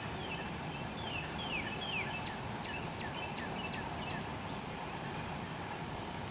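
A bird calling with a rapid series of short, high chirps that each slide downward, a few a second, over steady outdoor background noise.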